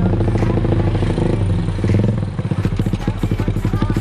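Honda CS1's 125 cc single-cylinder four-stroke engine running through an aftermarket exhaust (a customised Proliner header with a Lone Rider silencer), a fast, even train of exhaust pulses. The note swells about two seconds in, then drops back.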